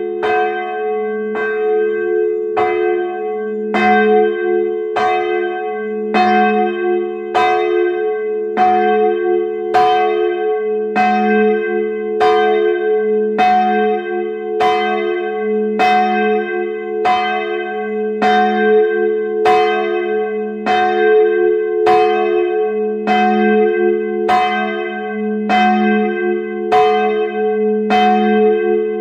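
Medium-small church bell swinging, its clapper striking at an even pace of about one stroke a second, each stroke's ringing carrying on under the next.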